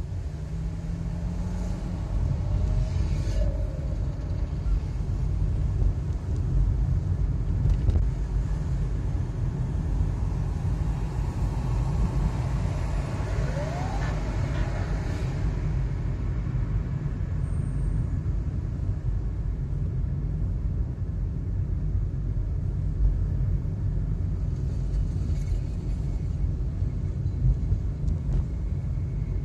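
A car driving through city traffic, heard from inside the cabin: a steady low rumble of engine and road noise, growing louder as the car gets under way in the first couple of seconds.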